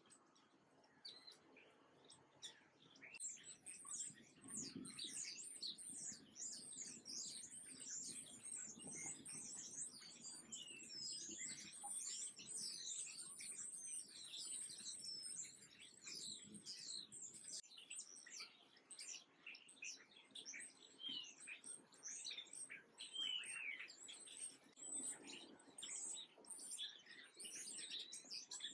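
A flock of small songbirds chirping continually, many short, high, falling chirps overlapping, faint at first and thickening about three seconds in.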